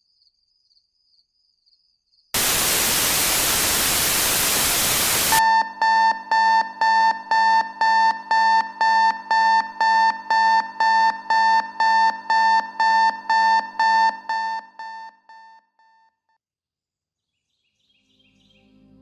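A loud burst of white-noise static lasting about three seconds, cut off abruptly by rapid electronic alarm beeping, about two beeps a second, which fades out and stops.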